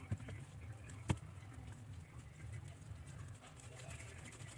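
Homemade talc-and-glue slime being kneaded and pressed by hand, with faint sticky clicks and one sharp tap about a second in, over a low steady hum.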